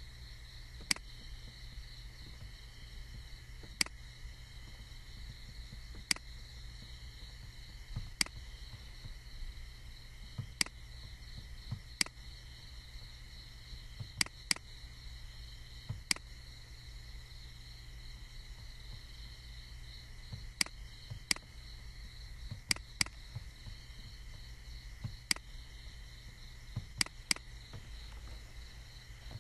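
Computer mouse clicking: sharp single clicks and a few quick pairs, one every second or two, over a steady low hum and faint steady high-pitched tones.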